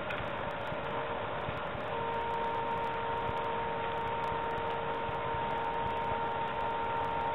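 Small electric motors of a DIY motorised camera slider running, driving the carriage along its screw-driven rail and turning the worm-drive pan head: a steady whine whose lower tone steps down slightly about two seconds in.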